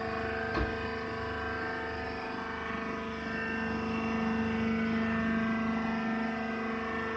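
Wood shaving baling machine running with a steady mechanical hum and several held whining tones. One short knock comes about half a second in.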